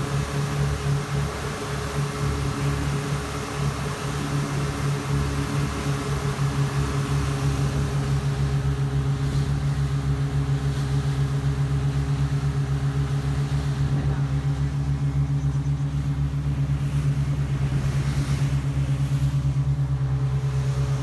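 Yamaha 242 jet boat engine running steadily at low revs with an even pulsing beat. The beat is a little uneven for the first few seconds, then settles. The boat's owner is chasing a misfire.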